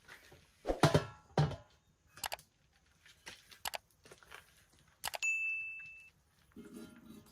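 Kitchenware being handled: a run of knocks and clatters, then about five seconds in a metal strike that rings out with one clear tone for about a second.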